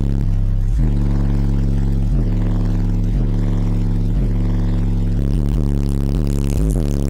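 Bass-heavy music played at high volume through two Digital Designs 9518 18-inch car subwoofers: a deep, steady bass note pulsing on a beat about once a second.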